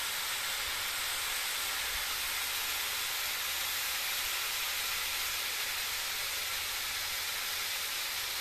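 Minced meat and sliced onions sizzling in a frying pan: a steady hiss.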